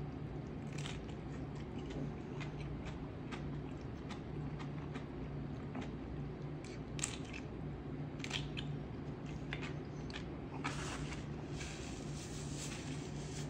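A person biting into and chewing a crisp tostada topped with shrimp ceviche: irregular crunches and crackles of the fried tortilla between the teeth, over a steady low hum.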